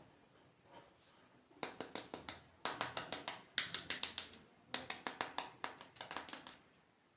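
Hard plastic being handled in five quick bursts of crisp clicking and crackling, each under a second long.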